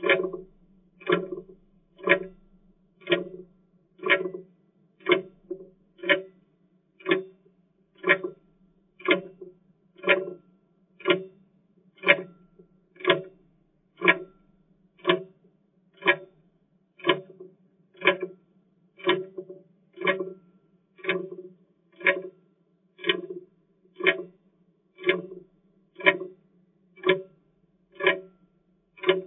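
Clock ticking steadily, one sharp tick each second, each with a short ring.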